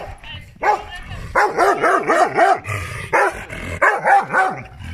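Shaggy grey dog barking repeatedly at a metal gate, a quick run of barks in the middle and a few spaced-out barks near the end.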